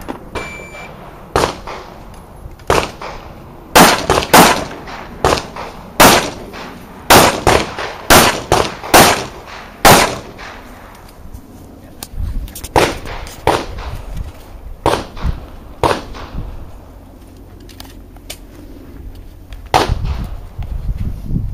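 Handgun shots: a rapid string of about ten loud shots over some six seconds, with a few single shots before it and quieter shots scattered after it.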